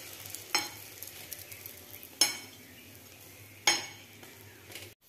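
Egg-dipped bread slices sizzling in oil on a flat metal pan, with a metal spatula scraping and clinking against the pan three times.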